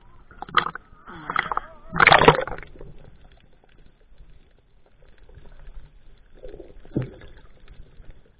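Seawater sloshing and splashing against a GoPro held at the surface, with a loud splash about two seconds in as it goes under, then muffled underwater sound with a single knock near the end.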